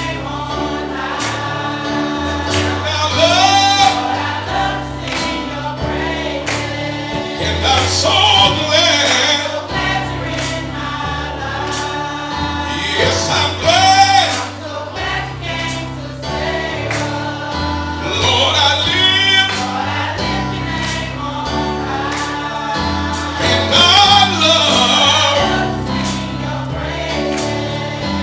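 Gospel choir singing with keyboard accompaniment over a steady beat.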